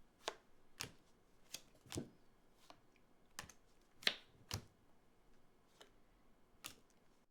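Uno cards being played onto a table: about a dozen light, irregular taps and clicks, the loudest about four seconds in.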